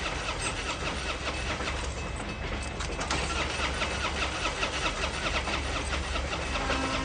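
A car engine being cranked over and over by its starter without catching. Near the end, a train horn begins to sound.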